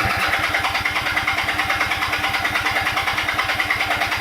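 The 1976 Kawasaki KZ400's parallel-twin engine running steadily with even, rapid firing pulses. It has just caught after sitting for about a year on old fuel, with the choke off.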